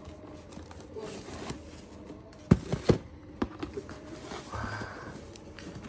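A shopping tote rustling as a cardboard shoebox is handled and slid out of it, with two sharp knocks from the box about two and a half seconds in, the loudest sounds, and a few lighter clicks after them.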